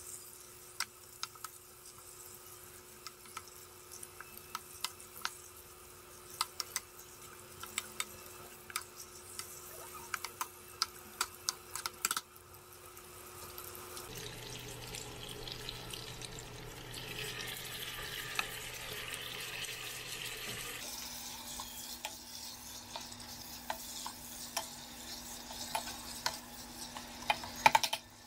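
Wooden spatula stirring chopped roast pork in a metal pot, with irregular clicks and scrapes against the pan over a sizzle. In the middle the clicking stops and a steadier sizzling hiss takes over, then the stirring clicks return.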